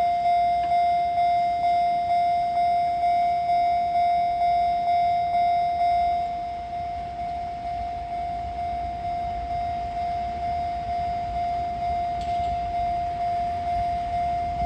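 Japanese railway level-crossing warning bell ringing, a single high electronic tone struck a little over twice a second; it gets slightly quieter about six seconds in.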